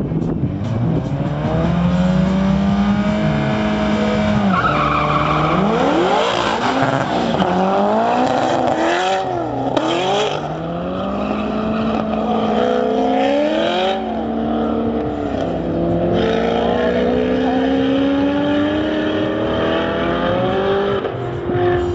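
A turbocharged Volvo S40 T4 and a Corvette launching and accelerating hard down a quarter-mile drag strip. Their engines climb in pitch and drop back at several gear changes.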